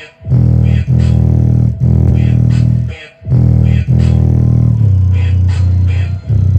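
A song with a heavy bass line and a regular beat, played through an iLive 2.1 speaker system with subwoofer during a bass test. The music cuts out briefly twice, right at the start and about three seconds in.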